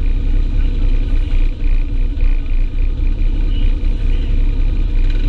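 Side-by-side UTV engine running steadily under way, with a heavy low rumble.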